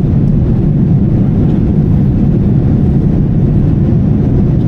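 Steady low rumble of a Boeing 787 Dreamliner's cabin noise in climb: engine and airflow noise heard from inside the passenger cabin.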